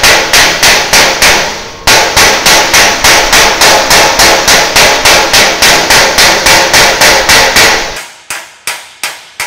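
Steel body hammer striking a sheet-steel door flange backed by a hand-held dolly, working the flange down and squaring it: quick, even blows about three a second, each with a metallic ring. There is a short pause about two seconds in, and from about eight seconds in the blows are lighter and less ringing.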